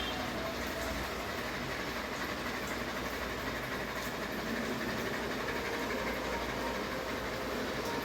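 Ceiling fan running steadily: a constant rushing noise with a faint hum.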